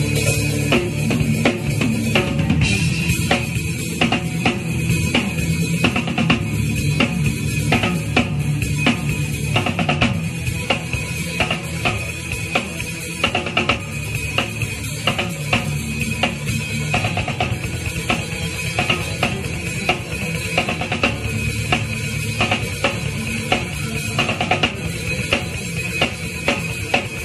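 Drum kit played hard in a steady rock beat: snare, bass drum and cymbals struck fast and evenly, with the rest of the band's music beneath.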